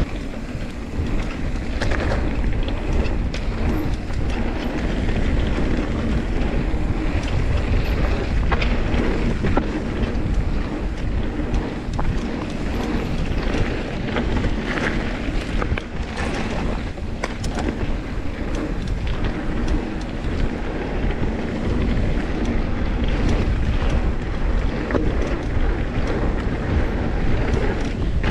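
Wind buffeting the bike-mounted camera's microphone over tyres running on gravel and dirt trail, with scattered rattles and knocks from the mountain bike over rough ground.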